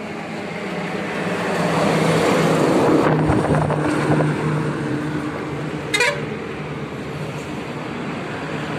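A heavy truck passing on the road, its engine and tyre noise building to a peak about three seconds in and then easing off, with a few short horn toots. A brief sharp noise cuts in about six seconds in.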